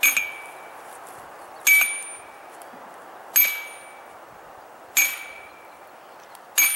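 Sledgehammer striking the top of a metal fence-post sleeve, driving it into the ground: five ringing metallic clangs about a second and a half apart, each ringing out briefly.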